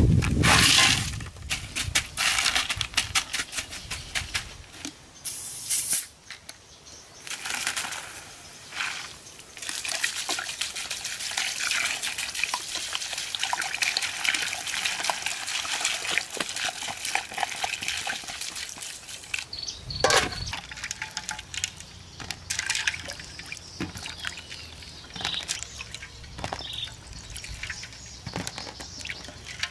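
Ice cubes tipped from a plastic bucket into a metal wok, clattering, followed by cola poured from a bottle onto the ice in a long, steady pour. A single loud knock comes about two-thirds of the way through.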